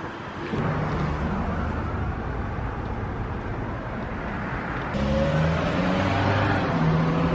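A car's engine running with road and traffic noise. The sound changes and gets a little louder about five seconds in.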